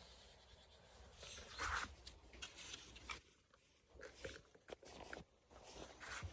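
Faint scattered clicks and light rustling: quiet handling noise, with no motor running.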